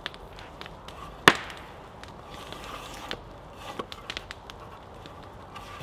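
Drawknife stripping bark from a cedar log: scraping strokes with scattered small clicks and ticks of bark and wood. There is one sharp crack about a second in.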